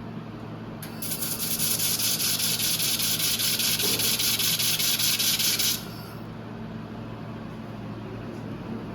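1500 W handheld fiber laser welder firing at an 8 mm scan width: a loud, steady high hiss with a fine rapid flutter, starting about a second in and cutting off sharply after about five seconds.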